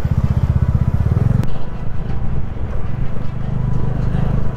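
Bajaj Dominar 250's single-cylinder engine running as the motorcycle is ridden, a fast, even beat whose note changes about a second and a half in, with a brief click at that moment.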